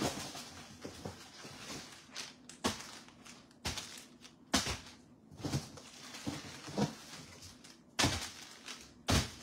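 Goods being unpacked by hand from cardboard boxes: products and packets knocked and set down with rustling in between, about eight irregular knocks roughly a second apart, the two loudest near the end.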